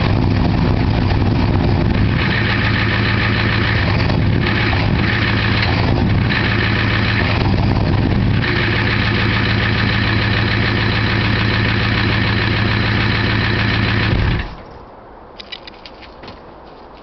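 Ford 7.3 L IDI diesel V8 idling steadily with two bad injectors, then shutting off abruptly near the end, leaving only a few faint ticks.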